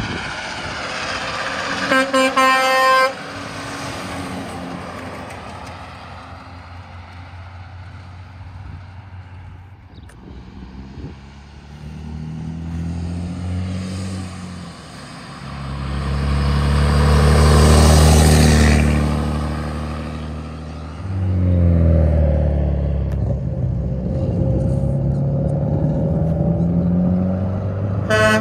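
Truck horn blasts for about a second, roughly two seconds in. Diesel trucks then pass on the road, the loudest about eighteen seconds in, followed by an engine rising in pitch as it accelerates. Another horn blast comes at the very end.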